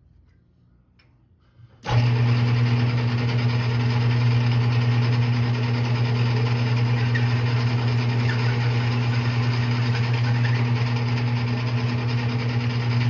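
Metal lathe running steadily with a strong low hum, facing off a steel nut held on a mandrel. It starts suddenly about two seconds in and stops right at the end.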